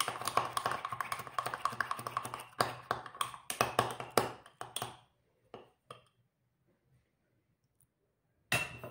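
Rapid clicking and scraping in a small ceramic cup as flour and water are stirred into a paste. It stops about five seconds in, and a short burst of clicks comes near the end.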